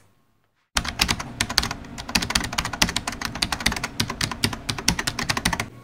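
Fast computer-keyboard typing: a dense, uneven run of key clicks that starts a little under a second in, after a brief silence.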